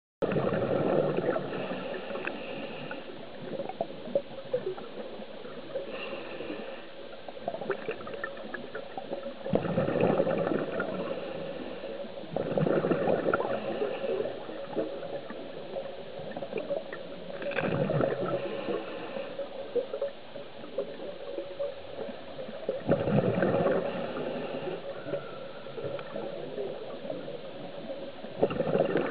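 Scuba diver breathing through a regulator underwater: a hiss on each inhale and a gurgling rush of exhaled bubbles about every four to five seconds, over a steady hum.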